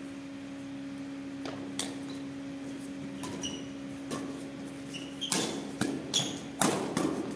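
Badminton doubles rally: rackets strike the shuttlecock in sharp cracks, a few spaced hits at first, then a quicker run of louder hits over the last two seconds, with short squeaks of shoes on the court floor. A steady hum runs underneath.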